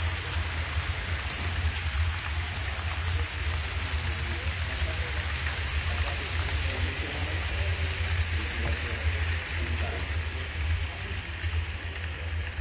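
Model freight train rolling past on layout track: a steady rushing noise of its wheels on the rails, over a steady low hum.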